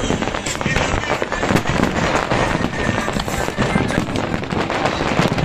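Fireworks display: a dense barrage of shell bursts, bangs and crackles in quick succession, overlapping without a break.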